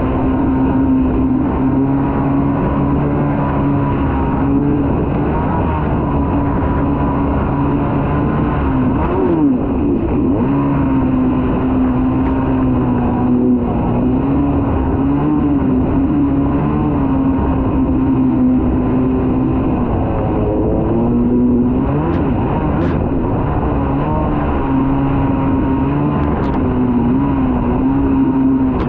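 Kawasaki 650SX stand-up jet ski's two-stroke twin engine running hard, its pitch rising and falling as the throttle is worked over the chop, with several brief dips.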